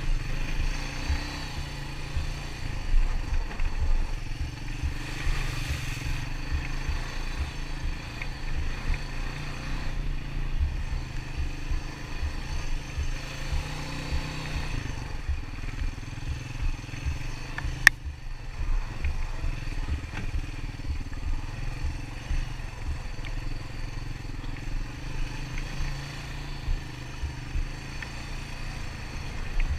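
ATV engine running steadily at trail speed, with irregular low thumps underneath. A single sharp click comes about 18 seconds in.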